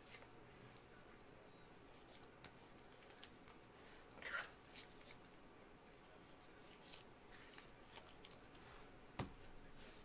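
Faint plastic rustles and light clicks of a trading card being slid into a clear plastic card holder by gloved hands, with a sharper knock near the end.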